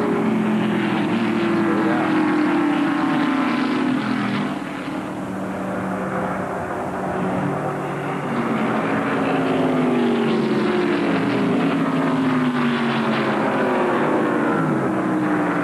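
NASCAR Winston Cup stock cars' V8 engines running at racing speed. Their pitch falls again and again as cars pass by, and the sound dips a little about a third of the way in.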